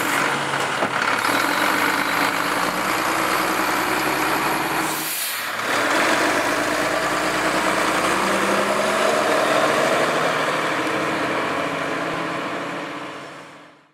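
Wittke Express manual side-load garbage truck's diesel engine running with a steady heavy drone, with a short hiss of air just before five seconds in. The truck pulls away and the sound fades out near the end.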